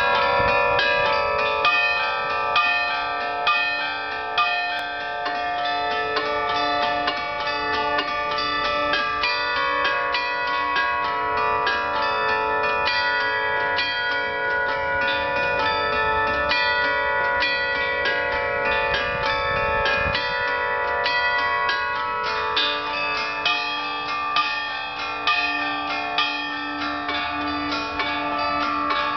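The Federation Bells, a field of upturned bells on poles, playing a tune: many struck bell notes one after another, each ringing on and overlapping the next.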